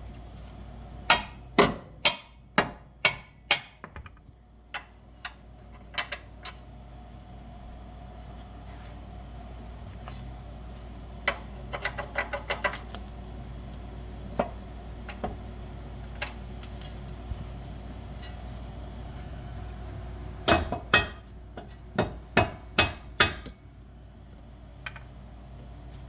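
Metal-on-metal hammer strikes while fitting a car's lower control arm: a run of sharp blows in the first few seconds, a quick series of lighter taps around the middle, and another cluster of blows near the end, over the steady hum of a shop fan.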